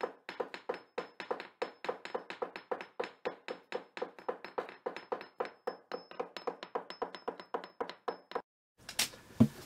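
A fast, regular run of sharp taps or knocks, about four to five a second, that stops abruptly near the end.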